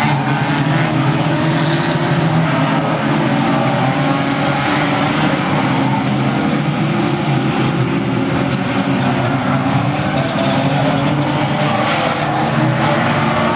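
Engines of several banger race cars running together as the pack races round the track, a dense mix of engine notes rising and falling in pitch.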